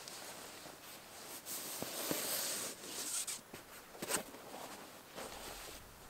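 Hands handling dry kindling and split firewood: rustling and scraping with a few sharp knocks, loudest about two to four seconds in.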